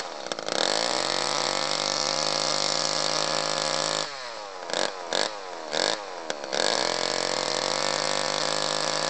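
Gas-powered chainsaw engine driving a margarita blender: it revs up and runs at full throttle for a few seconds, drops back to idle with four quick throttle blips, then revs up and runs flat out again.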